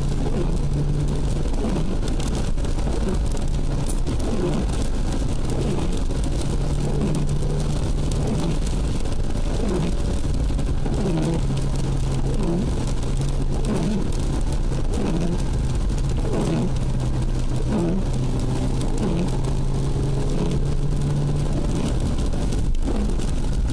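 Ford Puma heard from inside the cabin, its engine running steadily at road speed with tyres hissing on a rain-soaked road. The engine note steps down a little about halfway through and rises again a few seconds later.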